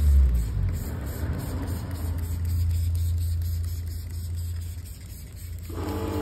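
Pressure washer running: a steady low motor hum under the hiss of the water spray. Music comes in near the end.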